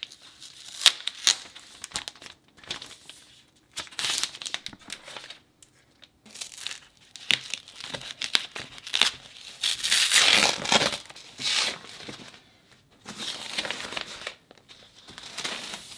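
Packaging being handled: a clear plastic sleeve and the soft protective wrapper around a new iMac crinkle and rustle in irregular bursts, with a few sharp clicks near the start. The rustling is loudest about ten seconds in.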